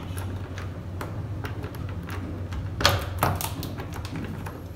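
Key working in a door deadbolt lock: a run of small metallic clicks and rattles, with two louder clacks close together about three seconds in as the bolt turns.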